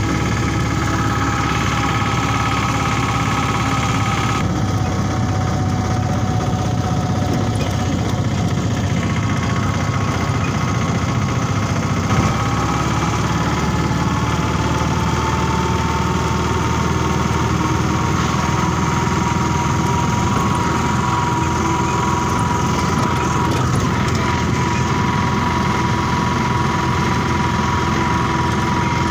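Engine and road noise heard inside a moving vehicle: a steady rumble with a thin whine that drifts slowly in pitch.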